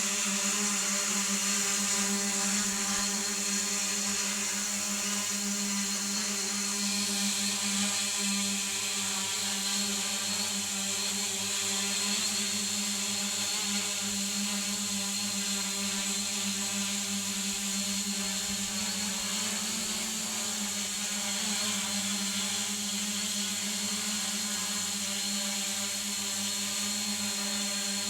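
Home-built multirotor drone's motors and propellers whirring at a steady pitch as it hovers holding altitude, the pitch wavering slightly about twenty seconds in.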